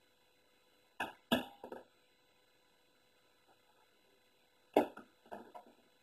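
Small thrown objects landing with light knocks and bounces on a cardboard box and the floor around a cat. There is a quick run of three knocks about a second in, and another run of three or four near the end.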